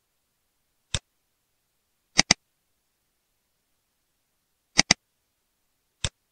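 Computer mouse button clicks: a single click, then a double click, another double click, and a last single click.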